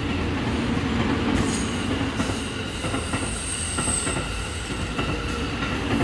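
Steady rumble and rattle of a moving vehicle, with a faint high squeal about three to four seconds in.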